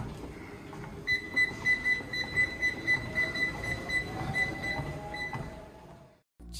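Rapid electronic beeping, one high tone about four times a second, starting about a second in and stopping near the end, over a low rumble.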